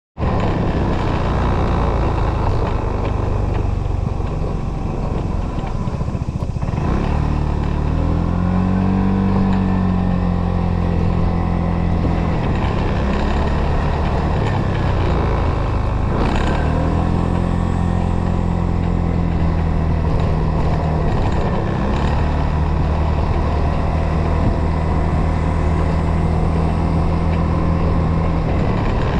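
Motorcycle engine running while riding, heard from on the bike. The engine pitch rises about seven seconds in and again about sixteen seconds in as it accelerates, then holds steady at cruising speed.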